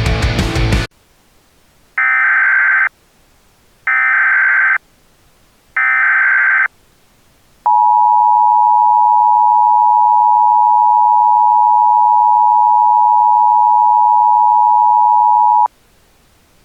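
Heavy rock music cuts off about a second in, and an Emergency Alert System alert begins: three short, screechy SAME header data bursts about a second apart, then the EAS two-tone attention signal, a steady dual-pitch tone held for about eight seconds that stops abruptly.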